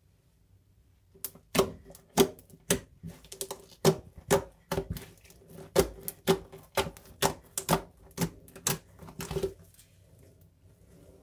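Slime being worked and squeezed by hand, making a series of sharp clicking pops, about two or three a second, that stop shortly before the end.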